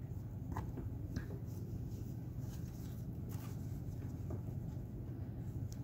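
Faint rustling and a few light taps as hands handle paper and lace on a journal page, over a steady low hum.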